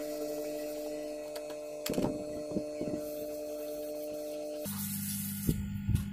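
Hot-air rework blower running with a steady whirring hum as it dries water-damaged phone parts, with a few light clicks of small parts being handled. Near the end its hum drops to a lower, deeper one.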